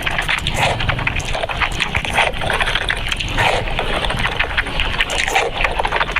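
Close-up chewing of meat with wet mouth and lip-smacking sounds: dense, irregular clicks and squelches.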